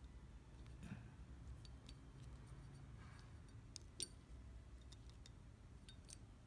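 Near silence with a low hum and a few faint, irregular small clicks from fingers handling fishing line and a plastic stop bead, the sharpest about four seconds in.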